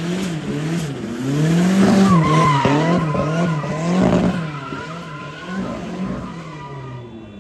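A car spinning donuts: the engine revs up and down about twice a second while the rear tyres squeal against the pavement, fading near the end as the car moves off.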